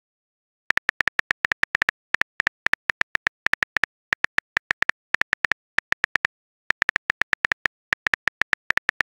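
Typing clicks of a phone texting app's on-screen keyboard, one short click per letter, several a second in quick irregular runs. The clicks start after a short silence and pause briefly about two-thirds of the way through.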